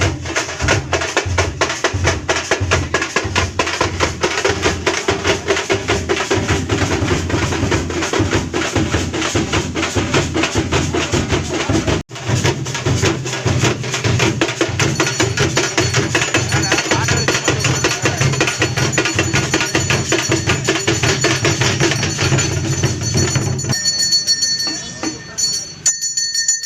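Percussion music: drums beaten in a fast, steady rhythm, with a brief break about halfway and the drumming stopping near the end.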